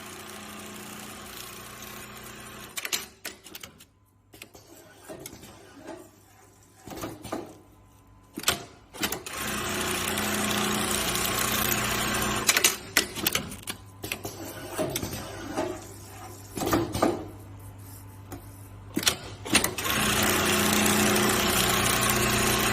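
Automatic velcro-tape sewing machine running in three steady bursts of stitching, the later two louder. Sharp clicks and knocks come between the runs.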